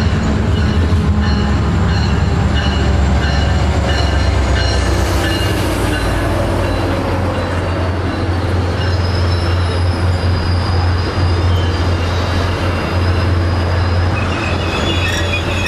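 Diesel locomotive running with a steady low drone while rail cars roll and their wheels squeal on the track in high, wavering tones. There is a brief hiss about five seconds in.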